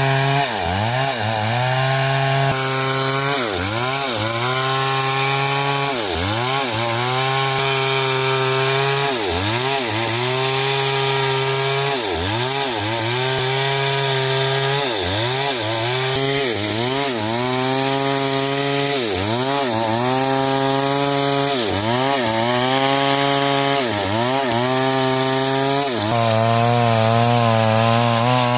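Chainsaw cutting through coconut wood, its engine revs dipping sharply and swinging back up roughly every two seconds, then running steadier near the end.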